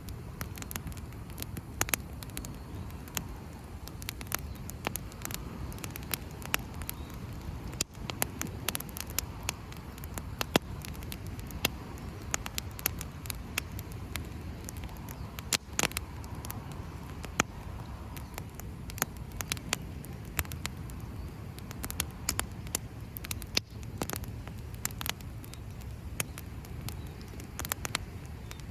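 Wood campfire crackling, with many irregular sharp pops and snaps over a steady low rumble.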